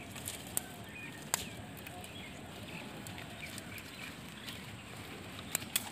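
Dry twigs and branches being gathered by hand, a few sharp snaps and cracks over a faint rustle, with faint bird chirps.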